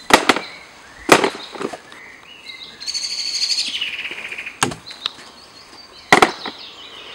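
Wooden field easel and its paint box being handled: a few sharp knocks and clatters, with a bird singing a fast high trill for about a second and a half midway.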